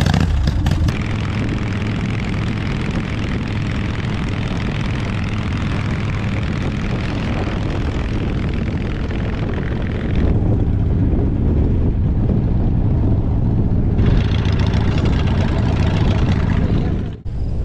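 Harley-Davidson cruiser motorcycle under way: the engine runs with a steady rush of wind noise. The mix changes abruptly about ten and fourteen seconds in, with a brief dip near the end.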